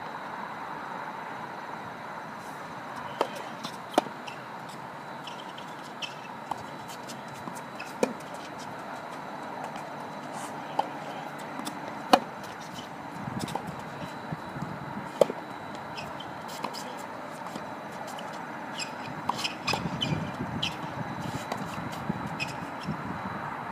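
Tennis ball knocks: scattered single sharp hits of ball on racket and court every few seconds, then a quicker run of knocks near the end as a rally gets going, over a steady outdoor background hum.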